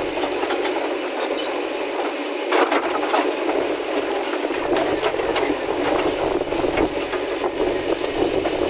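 JCB backhoe loader's diesel engine running steadily while its backhoe bucket digs into broken stone slabs, with rattles and scrapes of stone, loudest about two and a half seconds in.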